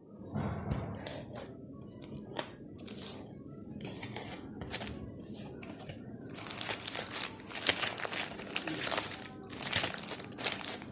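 Irregular crinkling and rustling, like packaging being handled, with a few louder crackles in the second half.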